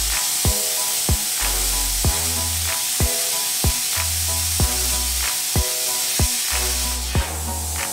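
Air plasma cutter cutting 3 mm steel plate at 25 amps on its built-in compressor, giving a steady hiss; at this setting it is struggling a little to get through. Background music with a steady beat of about two thumps a second plays over it.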